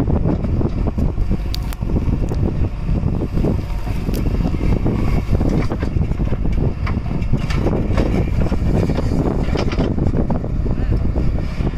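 JCB 3DX backhoe loader's diesel engine running steadily under load as the backhoe digs earth and swings it into a truck, with a few sharp knocks and wind buffeting the microphone.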